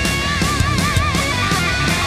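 Background rock music with a driving drum beat. A high lead note is held and wavers in vibrato for the first second or so.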